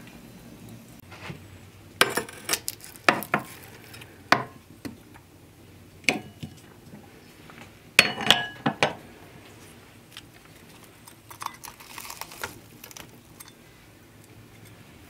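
Metal fork and serving utensils clinking against a metal roasting pan and plate: a string of sharp clinks with a brief ring, then softer scraping as meat is pulled from a roast chicken.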